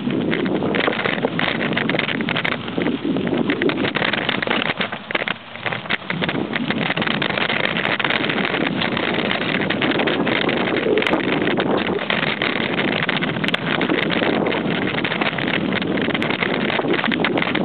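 Wind rushing over the microphone of a mountain biker's camera while riding, with frequent small knocks and rattles from the bike on the trail. It eases briefly about five seconds in.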